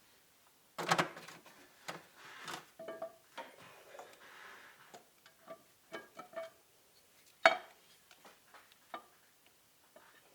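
Metal parts and hand tools clinking and knocking as the high-pressure oil rail is fitted back onto the Ford 6.0 Power Stroke's fuel injectors. The clinks are irregular with short rings, the loudest clank about three quarters of the way through.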